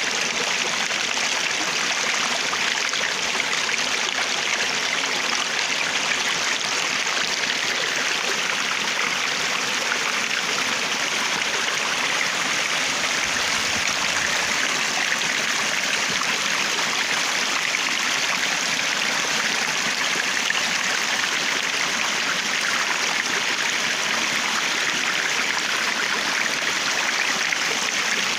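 Water flowing steadily in a stream, an even rushing and babbling that does not let up.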